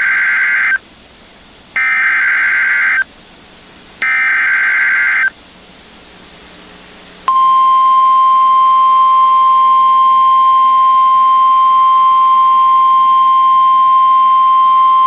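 Emergency Alert System SAME header on NOAA Weather Radio: three short buzzy bursts of digital data tones, each about a second long and about two seconds apart. About 7 seconds in, the steady single-pitch 1050 Hz weather radio warning alarm tone starts and holds, announcing a warning.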